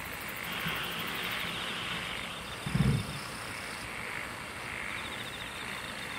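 Insects calling steadily in the background, a fast pulsing trill. About halfway through there is one short, louder low sound.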